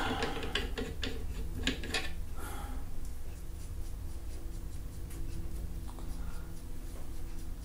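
Small metal rifle-rest parts being handled and screwed together by hand: a few light clicks and taps in the first couple of seconds, then quieter rubbing and the odd faint click over a steady low hum.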